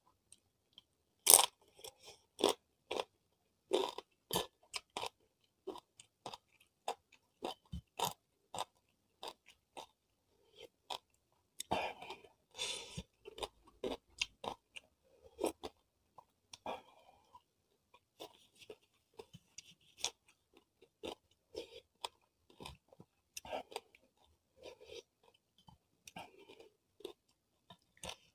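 Close-miked chewing and crunching of crisp cassava chips eaten with rice, a run of irregular sharp crunches with the loudest bite about a second in.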